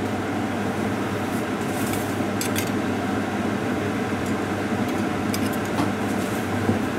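A few light clinks of a metal spoon against a steel bowl and pot as chilli powder is spooned over vegetables, over a steady background hiss.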